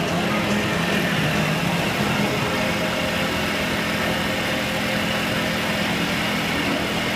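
Cotton candy machine running, its spinning head giving a steady motor hum.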